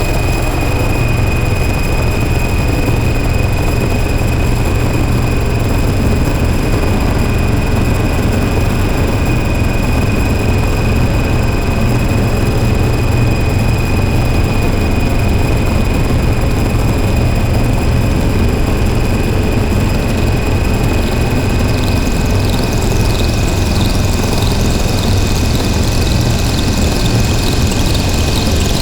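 Harsh noise drone from DIY noise synthesizers run through distortion pedals: a loud, unbroken wall of noise with a heavy low rumble and a steady high whistle. About three quarters of the way in, a fast up-and-down warbling sweep comes in at the top.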